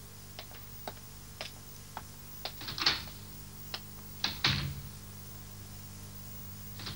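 Footsteps clicking on a hard floor, about two a second, as someone walks away, then a door shutting with a thud about four and a half seconds in. A faint steady hum runs underneath.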